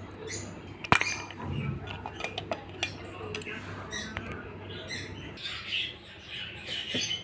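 Kitchen utensils clicking and scraping during masala preparation, with a sharp clack about a second in.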